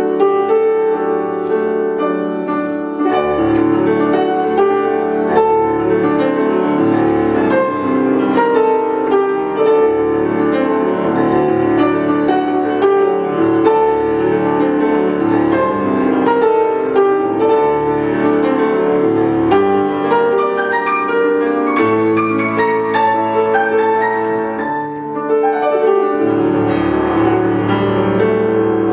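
Grand piano playing a film-score piece live, with dense, quick runs of notes and a short drop in loudness about 25 seconds in.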